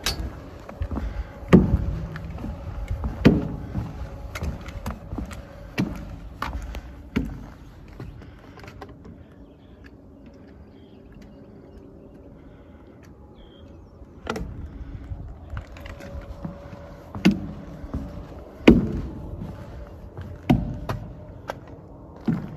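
Irregular knocks and thuds, one every second or two, as hikers walk across a long footbridge, with a quieter stretch in the middle. Wind rumbles on the microphone during the first several seconds.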